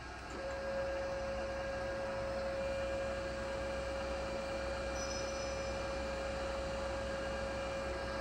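TOS-Kuřim FNK 25A milling machine's power feed driving the saddle along its cross travel at feed rate, with the direction just reversed. A steady hum with one constant whining tone that starts about half a second in.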